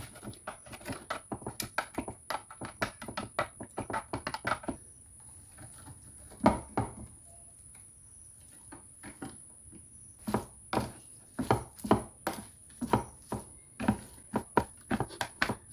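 Irregular run of knocks and clicks from kitchen food preparation, about three or four a second. The knocks come in two busy stretches with a single loud knock between them, over a faint steady high whine.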